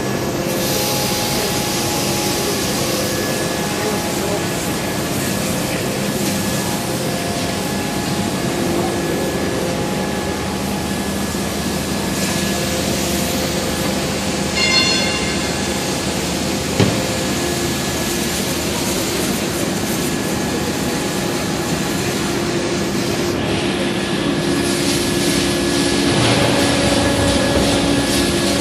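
Heavy forging-shop machinery running with a steady rumble and hum. There is a brief high squeal about halfway through, then a single sharp knock, and the machine note shifts and gets a little louder near the end.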